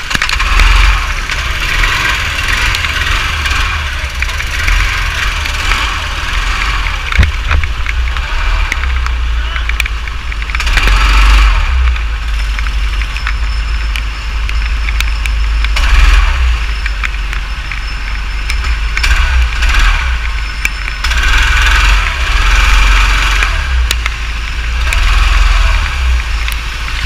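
Go-kart engine running as the kart is driven on a wet track, getting louder and dropping back several times, under a heavy low rumble and the hiss of rain and water spray on the onboard camera.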